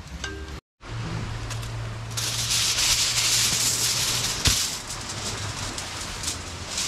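Aluminium foil being pulled off the roll and handled, a steady crinkling, crackling hiss from about two seconds in, with one sharp snap near the middle.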